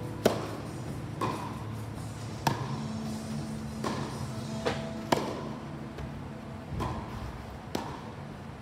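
Tennis rally on an indoor court: a serve struck about a quarter-second in, then the ball hit by racquets and bouncing, sharp pops roughly once a second, each with a short echo off the hall.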